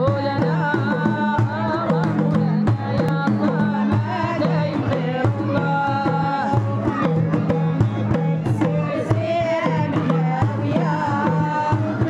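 Moroccan Aissawa Sufi devotional music: a melody sung over steady hand-drum percussion and sustained low notes, playing continuously.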